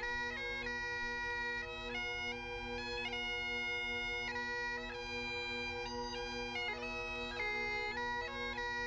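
Background bagpipe music: a steady drone with a melody moving over it.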